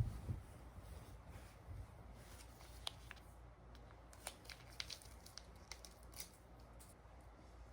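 A few soft low thumps, then scattered small sharp clicks and light handling noises over a faint steady hum.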